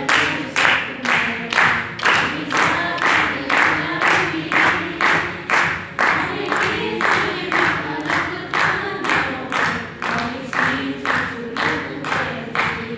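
A group of young voices singing a song together, over a steady clapped beat of about two claps a second.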